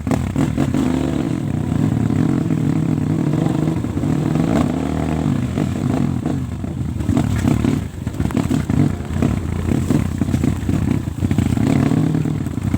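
Trail motorcycle engine running, its revs rising and falling unevenly, with a brief drop about eight seconds in.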